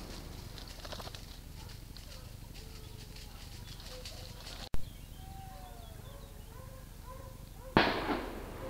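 Quiet scrub woodland with faint bird chirps, then near the end a single sudden loud bang with a short echoing tail: a gunshot from a hunting gun during a wild boar drive. A sharp click sounds about halfway through.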